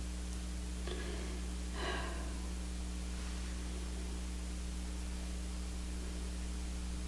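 Steady low electrical hum under a constant hiss, with two short breaths about one and two seconds in.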